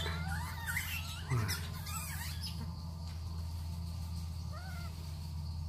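High-pitched wavering animal squeals in the first two seconds or so, then two short chirps about four and a half seconds in, over a steady low hum.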